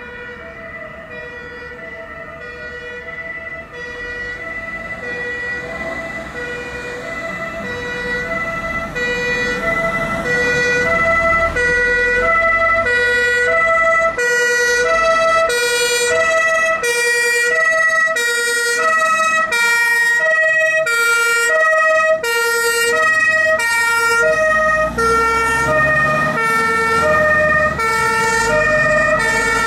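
German fire engine's two-tone siren (Martinshorn), its two notes alternating evenly at about one change every three-quarters of a second. It grows louder over the first dozen seconds as the truck approaches, then stays loud as it passes, with the truck's engine running underneath.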